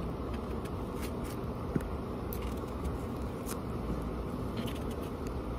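Steady low background hum, with faint short clicks and scrapes scattered through it from a kitchen knife slicing a peeled green mango into a plastic container.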